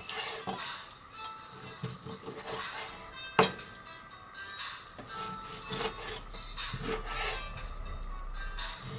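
Kitchen knife cutting raw chicken on a cutting board: irregular slicing strokes with the blade scraping and tapping the board, and one sharper knock about three and a half seconds in.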